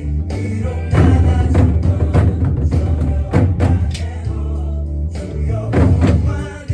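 Worship song with sung vocals over a bass-heavy backing, struck along with sharp nanta drum hits from sticks in a driving rhythm. The hits thin out briefly about four seconds in, then resume.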